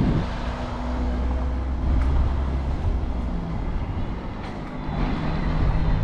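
Wind rumbling on the microphone over the steady hum of a car engine.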